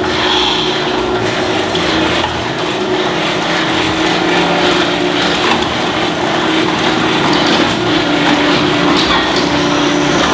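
Garage door running in its tracks, a steady mechanical noise with a steady hum through it, the rollers noisy because they need lubricating.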